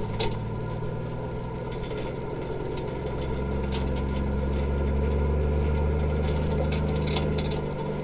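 Nissan Patrol's straight-piped TD42 inline-six diesel running on the move: a steady low drone that swells louder for a few seconds in the middle, then eases back.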